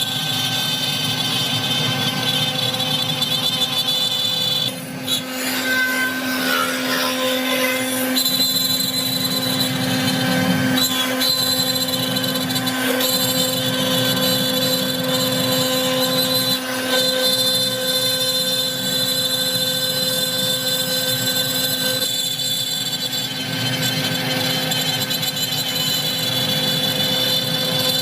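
CNC router spindle running steadily as it carves wood: a constant whine with a cutting noise over it.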